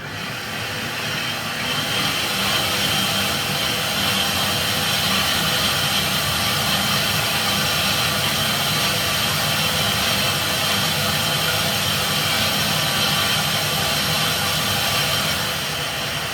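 Electric blender motor running continuously, blitzing wild garlic leaves into pesto. It starts sharply, builds over the first couple of seconds, then runs steadily and stops at the end.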